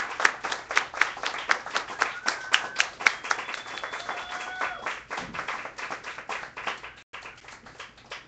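Hand clapping from a small audience after a live performance, thinning out and dying away near the end.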